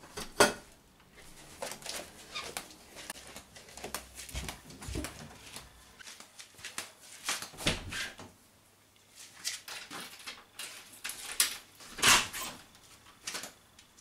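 Irregular clicks, knocks and clatter of doors and household objects being handled, with the loudest knocks about half a second in and about twelve seconds in.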